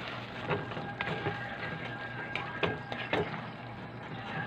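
A cooking spoon stirring and scraping sautéed banana blossom in a metal wok, knocking against the pan several times. Faint music plays underneath.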